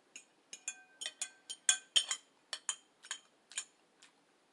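An eating utensil clinking and tapping against a dish while food is picked up: an irregular run of about a dozen sharp clinks, some ringing briefly.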